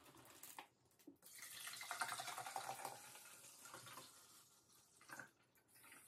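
Faint sound of water poured from a plastic gallon jug into the clear plastic water tank of a Nespresso Vertuo Plus coffee machine. It starts about a second in, splashes most strongly for a couple of seconds, then thins to a light trickle.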